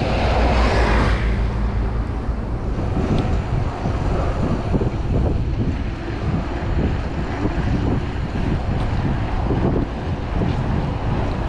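Wind rushing over the microphone during a mountain-bike trail ride, with a steady low rumble and a brief louder hiss in the first second.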